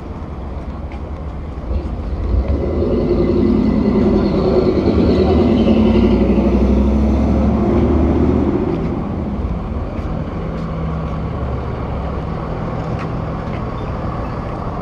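A motor vehicle passes on the street, its engine loudest from about two to nine seconds in, over a steady traffic rumble.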